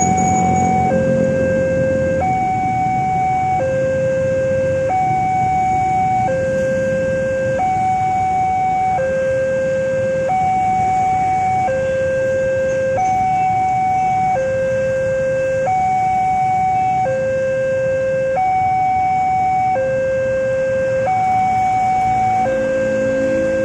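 Railway level-crossing warning alarm from the loudspeaker on the signal post: an electronic two-tone signal alternating steadily between a higher and a lower tone, each held a little over a second, sounding while the barrier is down to warn of an approaching train. Motorbike engines pass beneath it.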